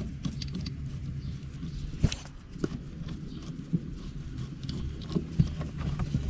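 T20 Torx screwdriver backing a screw out of a carpeted floor cover, with several scattered small clicks and taps from the tool and the hand handling the screw, over a steady low hum.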